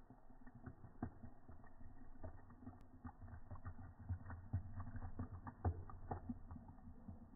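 Seltzer pouring from a can into a plastic cup, slowed down by slow-motion playback: faint, deep, irregular pops and crackles of the fizz and splashing liquid.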